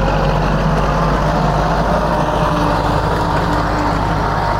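Kubota L4708 tractor's 47-horsepower diesel engine running steadily under load as it pulls a disc ridging plough through the soil.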